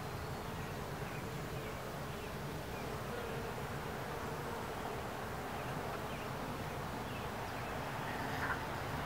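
Worker honeybees buzzing in an open hive: a steady, even hum.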